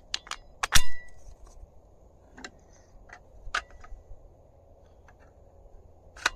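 3D-printed plastic parts clicking and knocking together as they are handled and snapped into place, with one sharp loud click just under a second in and scattered lighter clicks and taps after it.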